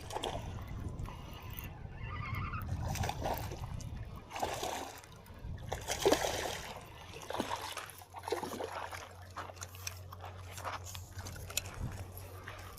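Water splashing and sloshing in irregular bursts, with low wind rumble on the microphone for the first few seconds. A steady low hum runs underneath from about seven seconds in.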